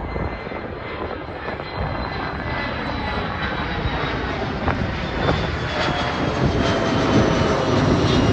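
Passenger airliner's engines, growing steadily louder as it nears, with a thin high whine over a broad rushing noise.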